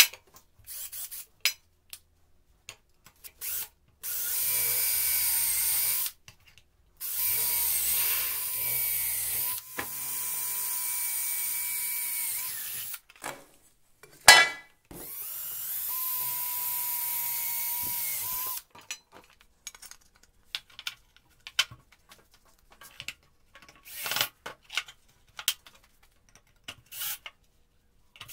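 Cordless drill boring through the thin metal of an old frying pan into a wooden block, in four steady runs of two to three seconds each. Between runs come short knocks and clicks of the work being handled, with one sharp loud click about halfway.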